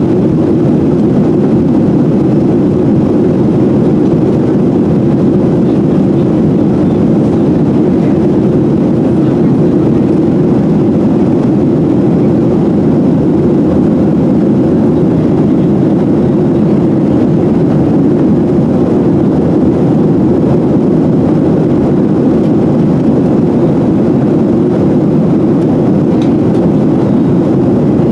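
Steady, loud engine and airflow noise inside the passenger cabin of a Boeing 737-700 jet airliner, an even low-pitched roar with no change in pitch or level.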